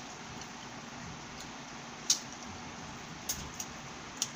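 A person eating with her fingers: a few short, sharp clicks of chewing and food handling, the loudest about two seconds in and three more near the end, over a steady background hiss.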